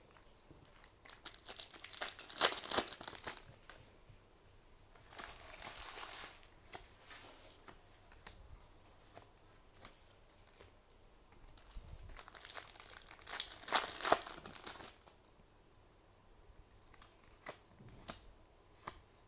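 Crinkling and tearing of trading-card booster pack wrappers being handled, in three bouts, the last the loudest, with light clicks of cards between them.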